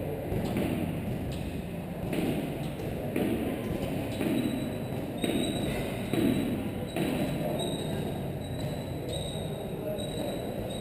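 Steel pull-up rig clanking with a faint metallic ring on each kipping chest-to-bar pull-up, about one rep a second.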